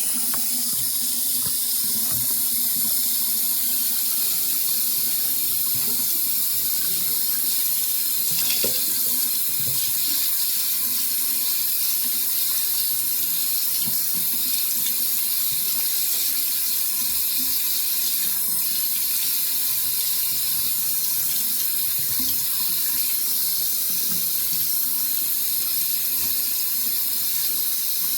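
Water running steadily from a tap while soap lather is rinsed out of hair, with small irregular splashes under the even hiss.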